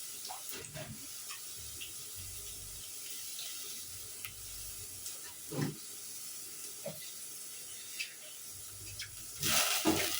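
Steady soft hiss of food cooking on the stove, with a few faint knocks of a utensil.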